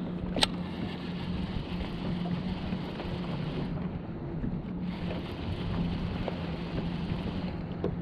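Wind buffeting the microphone over open water, with a steady low hum underneath. A single sharp click comes about half a second in, as the baitcasting reel is engaged to start the retrieve.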